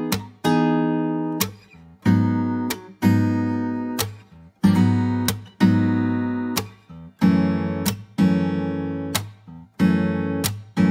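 Background music: acoustic guitar strumming a run of chords, each struck sharply and then ringing and fading, about one to two strikes a second.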